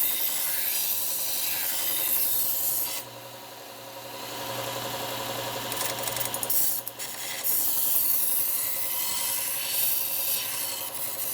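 Knife blade being sharpened on a Bucktool slow-speed bench belt sander: the steel edge hisses against the running abrasive belt. About three seconds in the blade comes off and the motor's low hum is left, then the grinding hiss returns for further passes from about seven seconds in.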